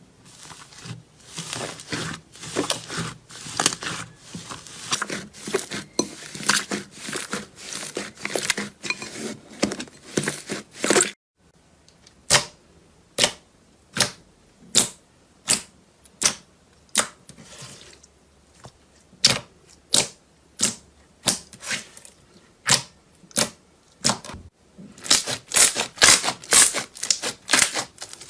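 Slime being pressed and played with by hand, giving sharp crackles and pops: a dense run of crackling, then after a cut single crisp pops about once a second, then dense crackling again near the end.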